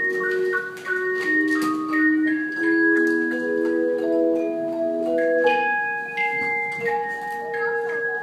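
Tone chime ensemble playing a melody: struck chimes ringing with pure, sustained tones, several notes held and overlapping at once, low and high parts together.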